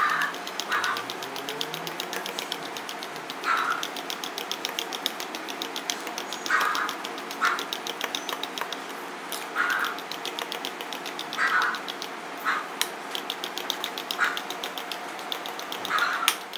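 Wet banana cake batter being beaten by hand with a metal utensil in a glass bowl: rapid, steady clicking of the utensil against the glass, with a louder, wetter stroke every few seconds.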